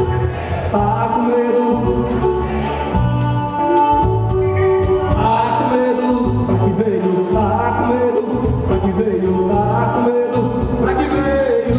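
Live band music with a steady beat: guitars over bass and drums, with sustained melody lines.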